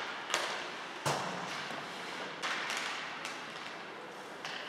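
Ice hockey sticks and puck knocking sharply in an indoor rink, about five echoing clacks with the loudest about a second in, over a steady hiss of skates on the ice.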